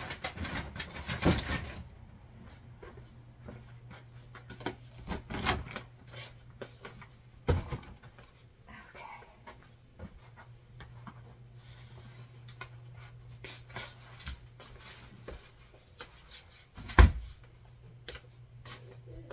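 Tidying up by hand: plastic bags and clothes rustling and things being picked up and dropped, with scattered knocks and one loud thump about 17 seconds in, over a steady low hum.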